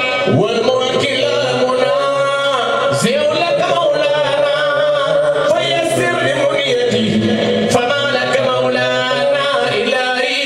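A man singing an Islamic religious chant into a microphone, his voice amplified through a sound system.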